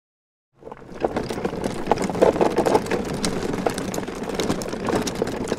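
Electric lawn mower running, with a dense clatter of irregular clicks over a steady motor noise. It starts abruptly about half a second in.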